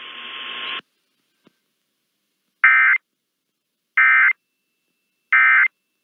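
A radio hiss that cuts off just under a second in, then three short, identical bursts of NOAA Weather Radio EAS data tones about a second apart: the end-of-message code that closes an alert broadcast.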